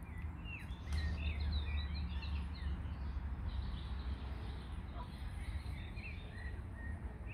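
Small birds chirping in many short, quick calls that slide up and down, over a steady low rumble that is strongest from about a second in to about three seconds in.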